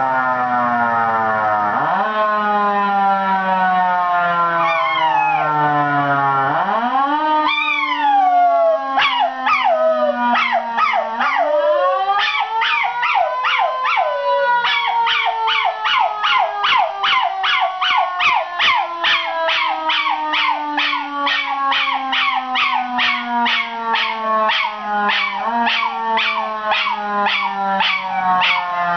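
A siren wails in long, slow rises and falls while a miniature schnauzer howls along with it. From about nine seconds in, the dog's howls come as quick repeated notes, two or three a second, over the siren's long held tone.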